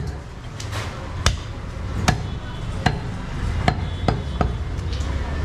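Butcher's cleaver chopping through goat meat and bone on a chopping block: about seven sharp chops at uneven intervals, roughly one every half-second to second, over a low steady hum.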